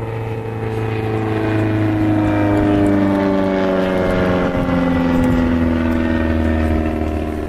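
An engine passing by: a droning hum whose pitch falls slowly as it goes, growing louder to a peak about three seconds in, then fading.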